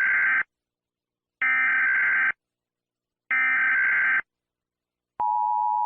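Emergency Alert System broadcast tones: three raspy, buzzy digital header bursts about a second apart, the first already sounding, then near the end the steady two-tone attention signal starts.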